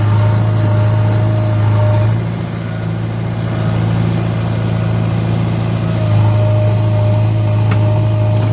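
JCB 3DX backhoe loader's diesel engine running steadily, with a thin high whine over it for about the first two seconds and again from about six seconds in.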